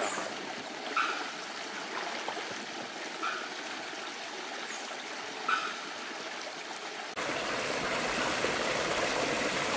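Spring water trickling and running over rocks in a small stream where it comes out from beneath a mountainside. About seven seconds in, the water sound becomes louder and fuller.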